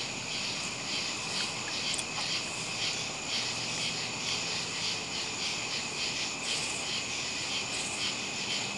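Chorus of crickets chirping steadily: a continuous high trill with evenly repeating chirps over it.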